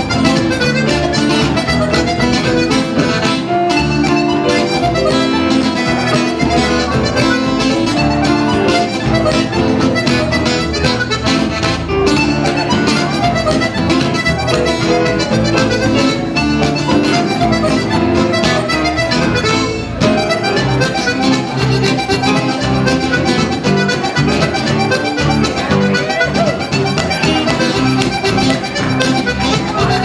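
French Canadian folk tune led by a diatonic button accordion, with acoustic guitar strumming and upright bass underneath, played live at a steady dance beat.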